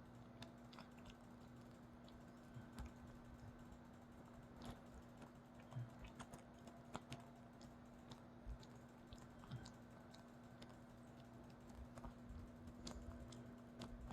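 Faint, irregular light clicks and taps, scattered a few to the second, over a steady low hum.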